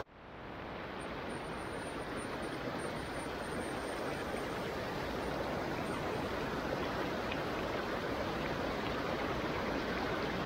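Steady rush of stream water running over rocky rapids and small falls, fading back in over about a second after a brief dropout at the start.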